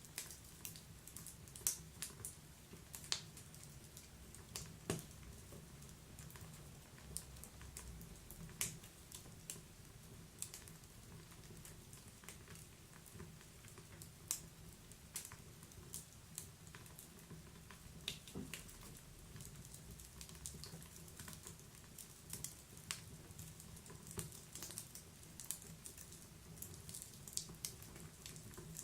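Wood fire burning in a wood-burning stove: irregular sharp crackles and pops of burning wood, several a second at times, over a low steady rumble.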